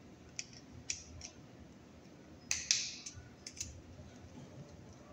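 Wire strippers working an insulated wire: a series of sharp clicks and snips, the loudest a little past halfway with a short ringing tail.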